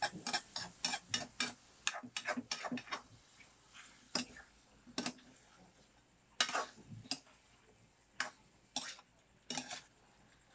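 Kitchen knife chopping on a cutting board: a quick run of about a dozen strokes in the first three seconds, then single chops about a second apart.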